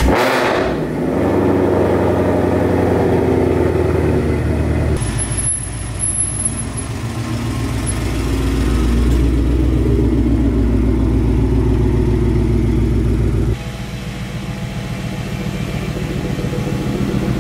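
Car engines running, a steady low engine sound that changes abruptly about five seconds in and again about thirteen and a half seconds in.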